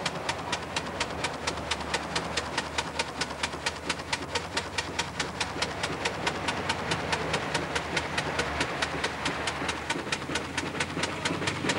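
Live-steam model Fowler steam engine running under load while winching, its exhaust chuffing in a steady rhythm of about five beats a second.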